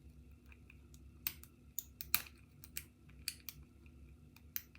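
Lock pick and tension tool clicking and scraping inside a Securefast 6-pin half euro cylinder lock, as the picker works the front pin with the cylinder in a deep false set from its spool pins. Irregular sharp clicks, several seconds apart at first and closer together in the middle.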